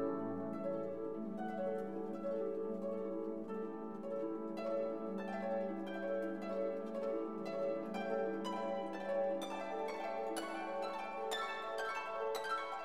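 Instrumental background music of plucked, harp-like strings over held lower notes, the plucked notes coming thicker and higher in the second half.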